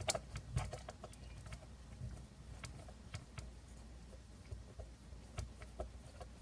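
Faint, irregular small clicks and ticks of a screwdriver working screws out of the plastic case of a FrSky Taranis QX7 radio transmitter. The sharpest click comes right at the start.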